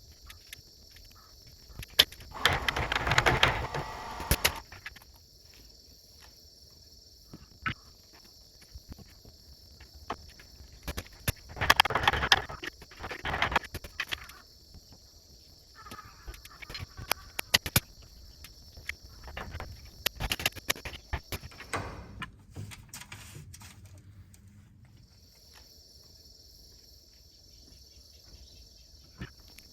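Three bursts of scraping and knocking from hand work on oak pieces, with a steady high cricket chirr behind them that stops briefly about three quarters of the way through and then resumes.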